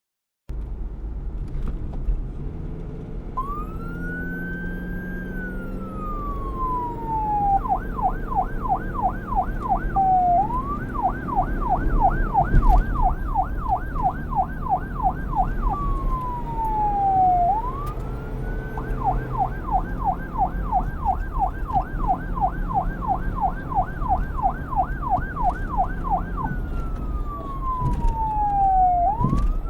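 Police car siren, starting about three seconds in and switching between a slow wail that rises and falls and a fast yelp of about four sweeps a second, over a low rumble.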